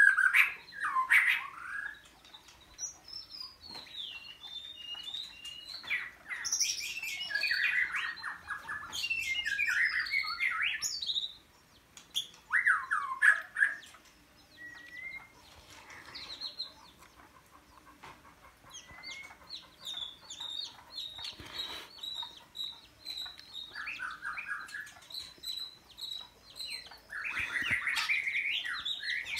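White-rumped shama song: varied, rich whistled phrases coming in bursts with pauses between them. Short high chirps repeat through the second half.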